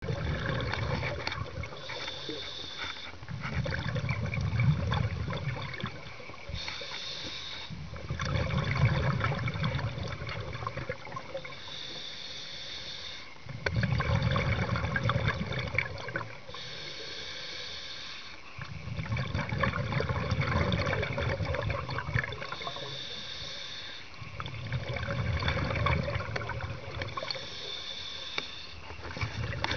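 Scuba diver breathing underwater through a regulator. Each breath is a short hissing inhale through the demand valve followed by a longer low bubbling exhale, about six breaths, one every five seconds or so.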